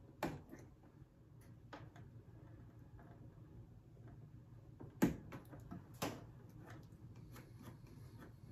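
X-Acto knife shaving cut plastic stubs flush on a replica proton pack's ion arm: scattered light clicks and scrapes, the sharpest a little past halfway with another about a second later.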